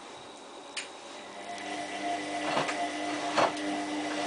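Hotpoint Aquarius+ WMF740 washing machine in its cottons 30 main wash: the drum motor starts turning about a second in with a steady whine that grows louder, and a few sharp thuds sound as the drum turns.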